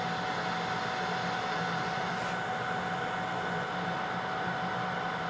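Steady fan whir from the BK-350S BGA rework machine's blowers running, with a constant mid-pitched hum tone over an even hiss.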